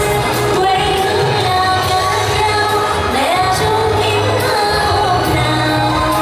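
A woman singing live into a microphone through a PA, over amplified backing music with a steady bass line.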